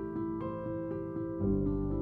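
Background music on a keyboard: slow, held notes, with a lower bass note coming in about a second and a half in.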